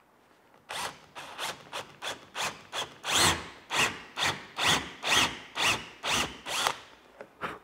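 Cordless drill boring into wood with a tapered bit that cuts the countersink and counterbore at once. It comes in a run of short bursts, about two a second, starting about a second in.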